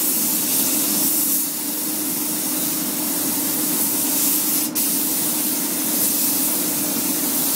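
Gravity-feed paint spray gun hissing steadily as it sprays clear coat onto a car fender, with one brief break about four and a half seconds in.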